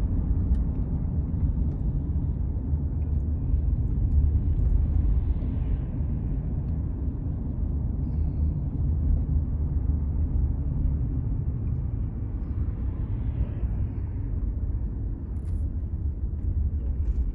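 Steady low rumble of a car driving slowly, engine and tyre noise heard from inside the cabin, swelling slightly twice.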